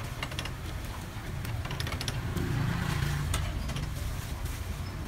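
Roadside street background: a steady low hum of traffic that swells briefly in the middle, with scattered light clicks and rustles of takeaway meat being handled into a foam box.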